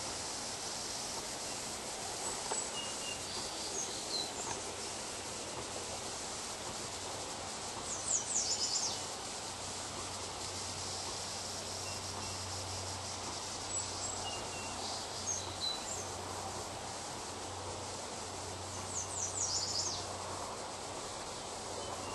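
Birds calling: scattered short high chirps, and twice a quick high trill of several notes lasting about a second, over a steady background rush.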